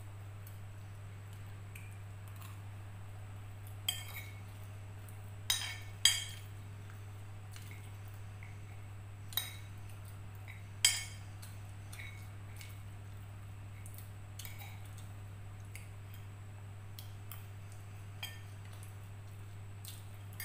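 A metal spoon clinks and scrapes against a ceramic plate while someone eats. About half a dozen sharp clinks ring briefly, the loudest about six seconds in, over a steady low hum.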